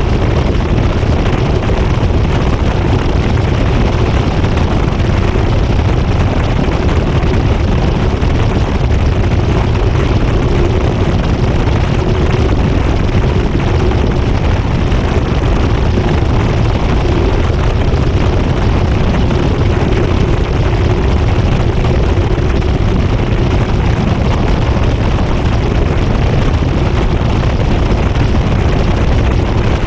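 GE GTW220ACKWW top-loading washer spinning at high speed, heard from inside the drum. A loud, steady rumble of the spinning basket and rushing air, with a faint steady hum and no rhythm or pauses.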